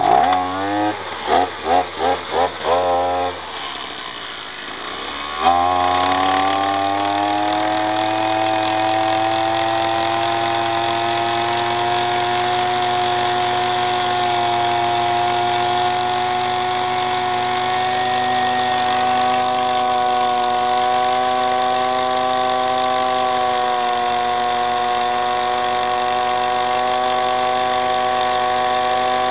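A 33cc two-stroke engine on a gas-powered SDS-max rotary hammer drill is pull-started. It catches and runs in uneven bursts, drops back, then picks up sharply about five seconds in. From there it runs at a steady, slightly rising pitch under load as the drill bores into a concrete block.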